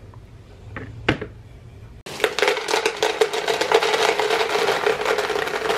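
Nutri-Grain cereal poured from its plastic bag into a plastic Tupperware container: a dense rattle of dry pieces pattering into the container, starting about two seconds in, after a single click about a second in.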